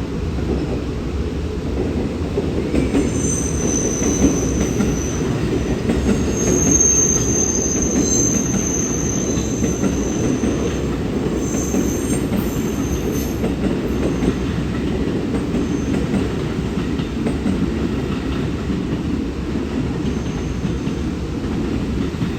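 Train moving along a platform track: a steady rumble of wheels on rail, with high-pitched wheel squeal coming and going for several seconds in the first half and briefly again near the end.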